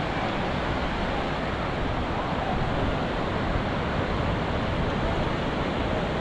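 Sea surf washing onto a beach, a steady rushing noise of waves without distinct single breaks.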